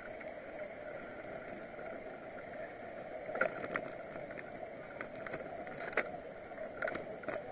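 Steady riding noise from a small camera mounted on a moving bicycle, rolling along the road, with several short clicks and knocks from about the middle on.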